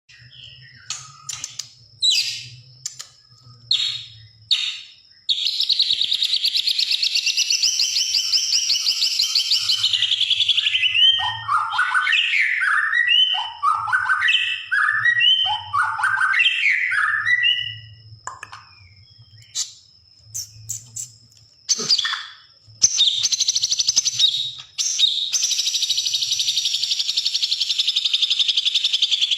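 Green leafbird (cucak hijau) singing a mimicked song: scattered short chirps, then a long, rapid, buzzing trill imitating a sewing machine for about five seconds, linked to a run of quick swooping whistles in the style of a sunbird (kolibri). The sewing-machine trill comes back about 23 seconds in and runs on.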